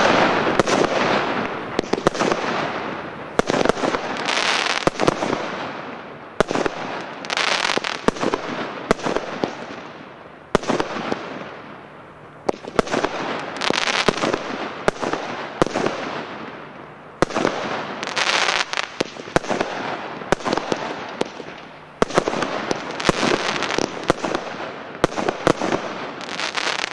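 Royal Fireworks 'Sunflower' (RFC 1418) consumer firework going off: shot after shot, a fresh wave every two to four seconds, each a burst that fades out in a dense spray of crackling stars.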